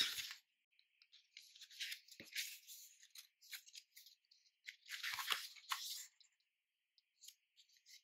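Pages of a thick paper booklet being flicked through by hand: faint rustling and flapping in short clusters, busiest about two seconds in and again around five seconds.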